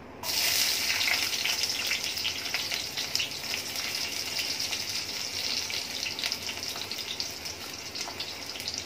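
Sliced onions hitting hot vegetable oil in a wok and frying: a sizzle with crackling that starts suddenly as they go in, then eases a little.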